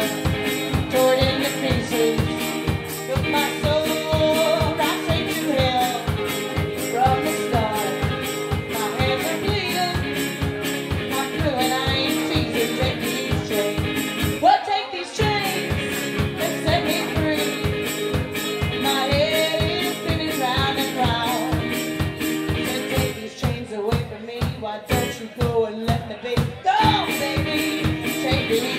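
Live one-person-band music: a singer's voice over guitar, with a fast, steady beat on bass drum and cymbals. The beat drops out briefly about halfway, then comes back.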